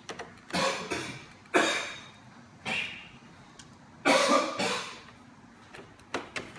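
A person coughing: four short, harsh coughs spread over a few seconds, with a few light clicks between them.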